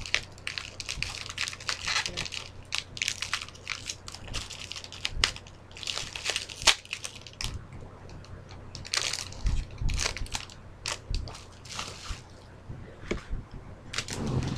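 Packaging being wrenched apart by hand: a long run of irregular crackling, crunching and snapping, with a steady low fan hum underneath.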